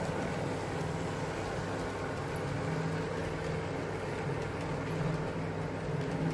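OO gauge model trains running: a steady hum of small locomotive motors with the rumble of wheels rolling over the track.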